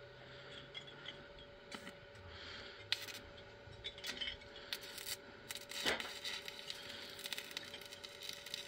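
Irregular taps, clicks and scrapes of hand work on a steel roof frame, the sharpest knocks about three and six seconds in, over a faint steady hum.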